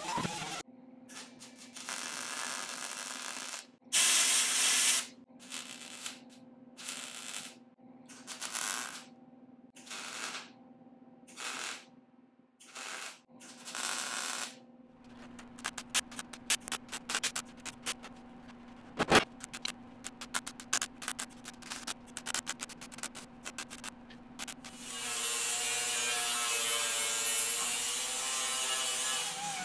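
Steel sheet-metal work on a Jeep CJ5 body tub, in three parts. First comes a string of short hissing bursts from air-tool cutting and MIG tack welds. Then about ten seconds of crackling, sputtering MIG welding. Near the end, an angle grinder runs steadily on the fresh weld.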